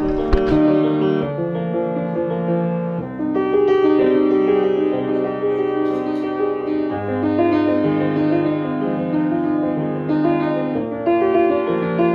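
Background music: an instrumental piece led by piano, with held chords that change every second or two.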